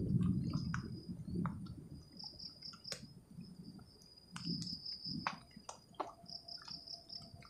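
Insects, crickets by the sound, chirping in a steady high pulsing trill, with scattered light ticks and some low rustling in the first second or so.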